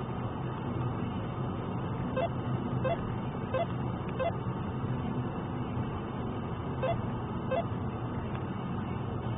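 Steady road and engine noise heard from inside a car's cabin at motorway speed. A run of four short, evenly spaced beeps a little under a second apart comes about two seconds in, and two more near the end.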